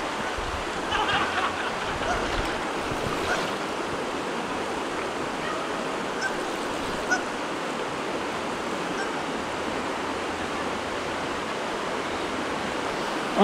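Steady rush of flowing river water, an even constant noise.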